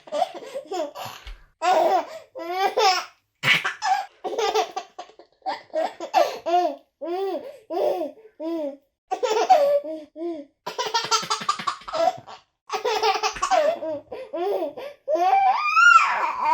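A baby laughing in repeated belly-laugh bursts: quick runs of short 'ha-ha' pulses broken by breaths, with a high squealing laugh near the end.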